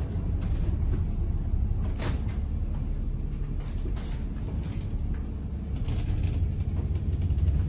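Low, steady rumble of a moving bus heard from inside the cabin, with a few knocks and rattles, the sharpest about two seconds in.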